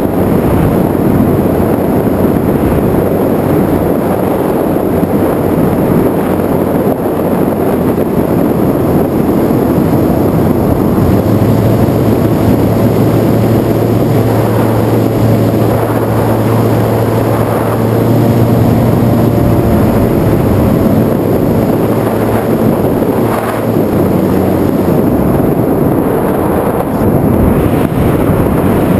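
Onboard audio of an FPV aircraft in flight: loud, steady rush of wind on the microphone mixed with the drone of its motor and propeller. A low steady hum comes in about a third of the way through and drops away a few seconds before the end.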